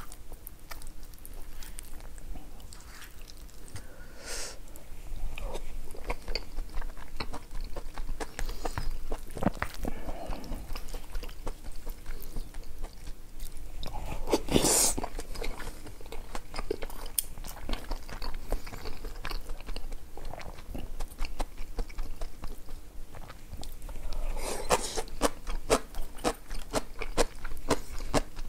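A person chewing and biting food, with a steady run of small wet mouth clicks. There is a louder burst about halfway through and a dense stretch of clicks near the end.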